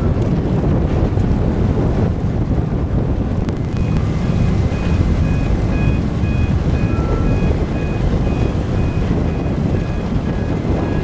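Steady low rumble of the ferry Blue Star Naxos manoeuvring close by, its engines and churning water mixed with wind buffeting the microphone. From about four seconds in, a run of short high beeps at a few different pitches, about two to three a second.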